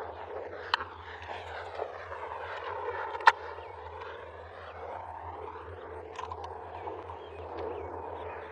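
Faint motorized buzz of a Moto Chug, a battery-powered robotic topwater lure, vibrating on the pond surface, with a steady low hum under it. Two sharp clicks cut in, one just under a second in and a louder one about three seconds in.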